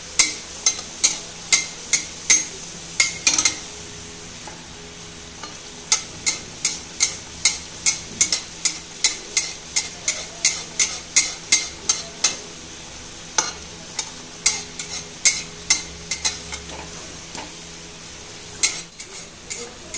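Metal spatula scooping hot oil over an aloo kachori deep-frying in a steel kadai: runs of sharp scrapes and splashes, about two to three a second with a few short pauses, over the steady sizzle of the frying oil.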